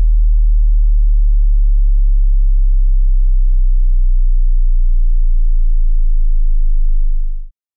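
Pure sine-wave subwoofer test tone, very low and loud, dropping in pitch from about 39 Hz to about 27 Hz. It cuts off suddenly near the end.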